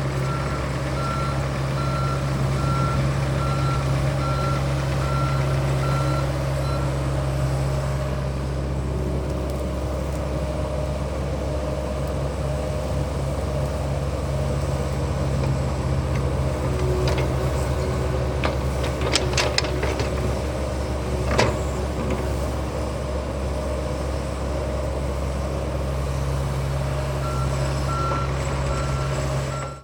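John Deere 60G compact excavator running steadily, with its travel alarm giving a series of evenly spaced beeps at the start and again near the end, and a few sharp metallic clanks around the middle.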